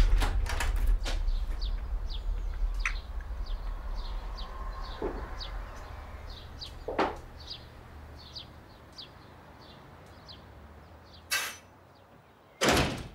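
Front door sounds as it is opened and shut: a knock about seven seconds in, then two sharp bangs near the end, the last the loudest. A bird chirps in quick repeated notes throughout, and background music fades out at the start.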